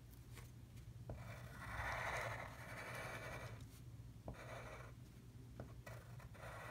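Soft charcoal pencil scratching across tracing paper under firm pressure, in a few drawn strokes, the longest about two seconds, starting about a second and a half in. It is tracing over the back of the lettering to lay down charcoal for transfer.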